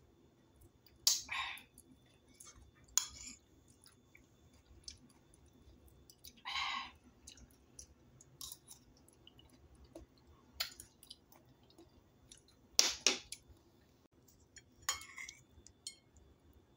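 Metal spoon clicking and scraping against a ceramic plate while scooping soft silken tofu, with quiet chewing between: about six short, sharp sounds spread out, one of them a longer scrape near the middle.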